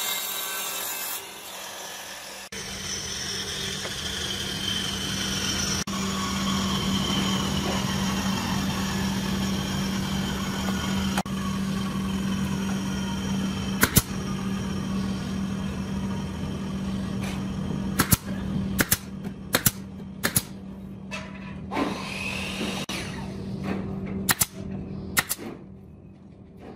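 A power tool running on wood with a steady hum, in several short edited segments. In the second half there is a scattering of sharp knocks.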